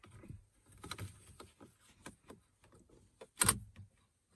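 Small plastic clicks and scrapes of fingers working the stock tweeter and its plug inside the dashboard speaker opening, with one louder knock about three and a half seconds in.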